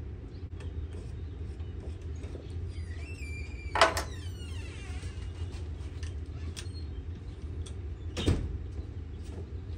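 Clanks of a hand tool and wheel parts against a steel mower deck: one loud clank with a brief metallic ring about four seconds in, and a second sharp knock about eight seconds in, among small clicks of handling.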